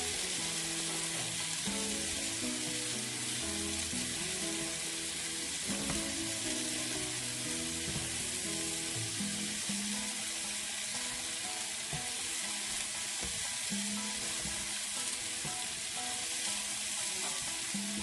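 Beef strips, onion and bell pepper sizzling steadily in a hot pan as the marinade cooks off and the meat toasts, with soft background music.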